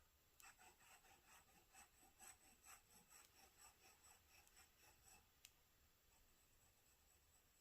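Faint scratching of a pen nib writing on paper, a quick run of short strokes lasting about five seconds, then a single light click.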